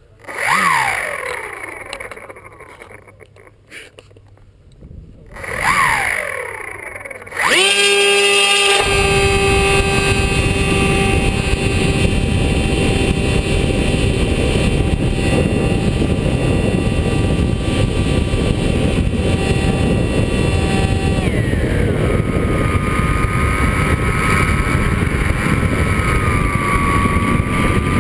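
Brushless electric motor of a Skywalker FPV plane, heard through an onboard GoPro: two short throttle blips that wind up and fall away, then from about seven seconds in a steady high whine at full throttle with loud wind rush over the microphone as the plane flies. Around twenty-one seconds the pitch drops as the throttle is eased back.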